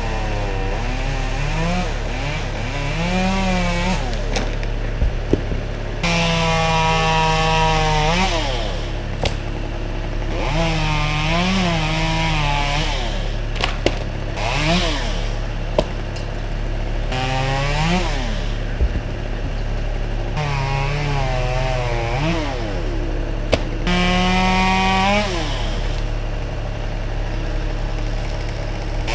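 Chainsaw revving up for a cut of one to three seconds at a time, about five times, and dropping back between cuts, over a steady low engine hum. There are a few sharp knocks in between.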